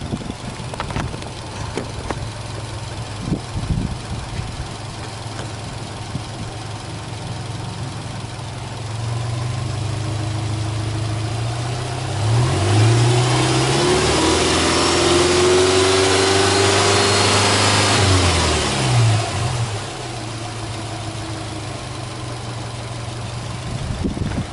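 Subaru Legacy 2.0GT spec.B's turbocharged 2.0-litre flat-four boxer engine idling, then revved up in free rev about halfway through, held high for about six seconds, and dropped back to a steady idle.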